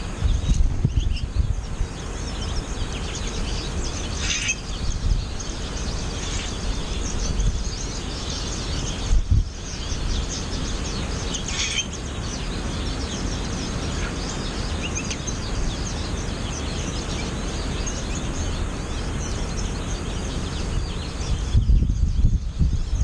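American goldfinches calling in a steady run of short, high chirps, with louder calls about four seconds in and again near the middle, over the low rumble of wind on the microphone.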